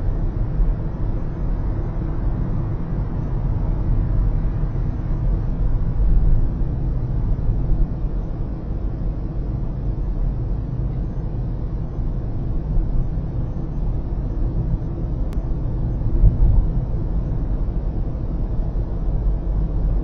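Steady low road and tyre rumble of a car driving on an expressway, heard inside the cabin, with a couple of brief louder bumps.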